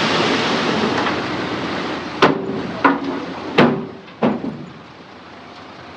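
Heavy rumble of a dump truck unloading that dies away, then four sharp metal bangs with a short ring, about two-thirds of a second apart: the kind of banging a tipper's body and tailgate make as the last soil is shaken out.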